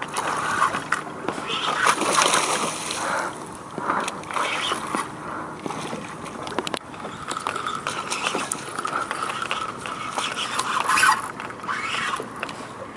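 Choppy seawater splashing and sloshing, rising and falling irregularly.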